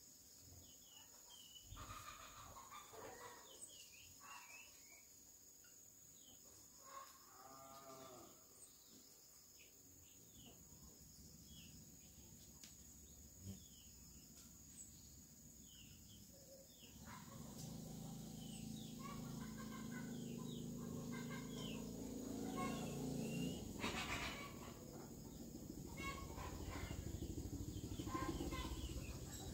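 Rural outdoor ambience: small birds chirping throughout, with a farm animal call about seven seconds in. From about seventeen seconds in, a low steady drone comes in and the sound grows louder.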